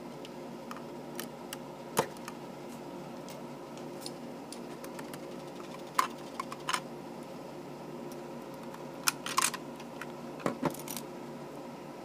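Plastic LEGO bricks clicking and clattering as a LEGO puzzle box is worked by hand and a piece is pulled free. The clicks are sharp and scattered: one about two seconds in, a small group around the middle, and a denser cluster in the last few seconds, over a steady background hum.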